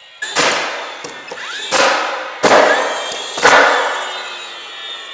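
A DeWalt cordless finish nailer firing four shots, nailing a pine beam board into the wood blocking overhead. The shots are unevenly spaced, with the last three coming about a second apart, and each is a sharp crack with a short ring.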